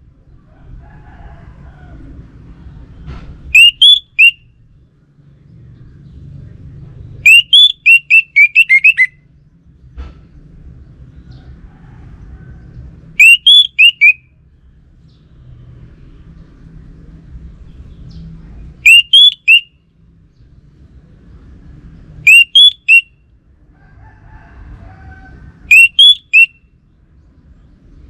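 Orange-headed thrush (anis merah) singing: loud short phrases of three or four quick whistled notes, repeated every three to five seconds, with a longer run of notes about eight seconds in. A low rumble lies underneath.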